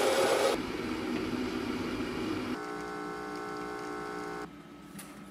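Electric coffee grinder running and cutting off about half a second in, followed by a softer hiss. Then a compact espresso machine's pump hums steadily for about two seconds and stops.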